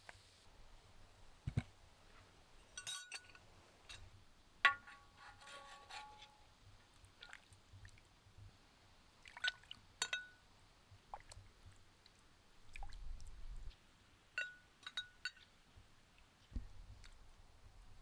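Scattered clinks and taps of glass and tableware, a few of them ringing briefly, the loudest about five seconds in.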